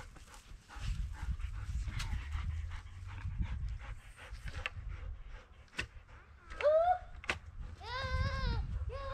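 Goat bleating near the end: a short rising call, then a longer wavering bleat. A few sharp knocks come earlier.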